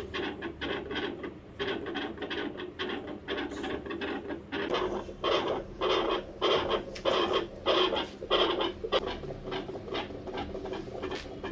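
A dog's chest heard through a stethoscope: quick, uneven rasping and rubbing strokes, about three a second at their busiest.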